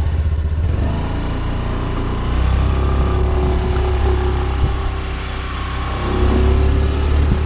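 Suzuki Burgman scooter engine running as the scooter rides off along a dirt yard, swelling louder about two seconds in and again near the end.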